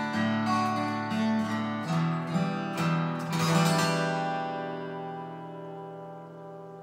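Two acoustic guitars, a Jasmine and a Taylor Builder's Edition 324ce, strumming chords together. A final chord strummed about three and a half seconds in rings out and slowly fades.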